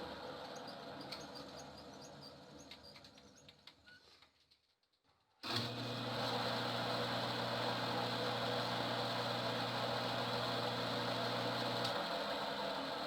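A homemade lathe running. Its sound fades away to near silence over the first five seconds, then starts again abruptly and runs steadily with a low hum, which drops out near the end while the running noise continues.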